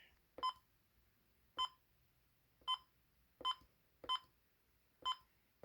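First Alert WX167 weather radio giving short electronic key beeps as its buttons are pressed: about six identical beeps spaced irregularly, roughly a second apart.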